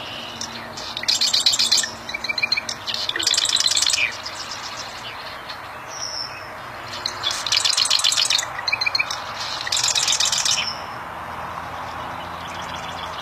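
Bar-winged prinia (prenjak) singing: four loud bursts of very rapid, high, trilled notes, each lasting one to two seconds, over a steady background hiss.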